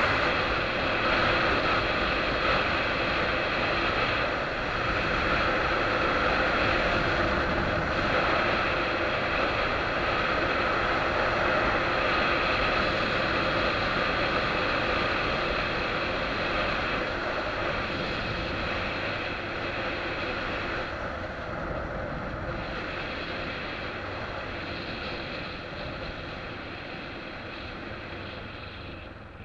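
Wind rushing over a helmet-mounted camera on a moving motorcycle, with the bike's engine running steadily underneath. It grows gradually quieter over the second half as the motorcycle slows.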